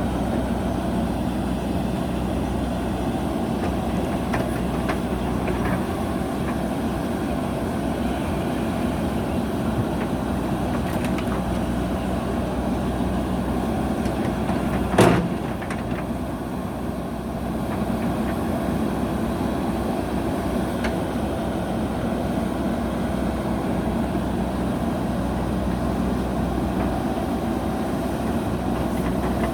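JCB backhoe loader's diesel engine running steadily, with one sharp knock about halfway through.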